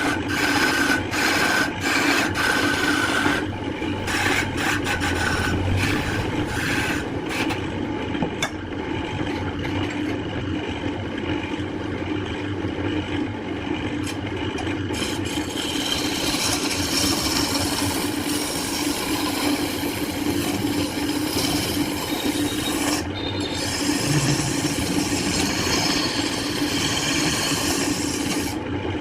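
A tool working wood with a steady rasping scrape over a constant machine hum, with a few sharp clicks in the first several seconds.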